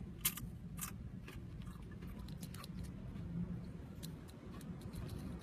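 A dozen or so short, sharp clicks and crackles, the loudest near the start, over a steady low rumble in a car's cabin.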